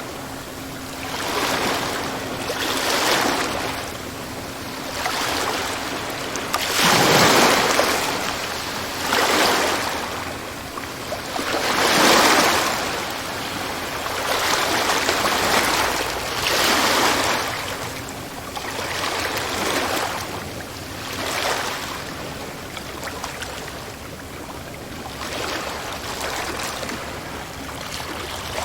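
Sea waves breaking and washing up the shore, one swell every two to three seconds, a few louder than the rest. A faint steady low hum sits underneath in places.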